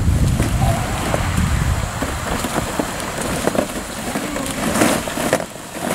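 Hollow plastic ball-pit balls clattering and rattling against each other as children dig through a pool full of them with their hands. A low wind rumble on the microphone fades out about two seconds in.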